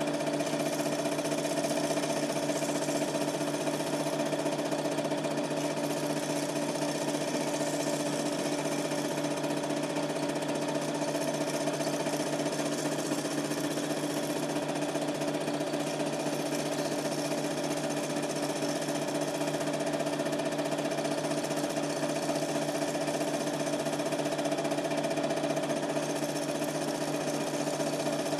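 Super 8 film projector running steadily, its motor and film mechanism making a constant mechanical whirr with a few steady tones.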